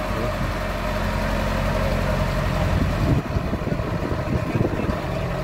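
Dump truck engine running while the hydraulic hoist tips the loaded bed up. About three seconds in, the steady engine note gives way to an uneven low rumble.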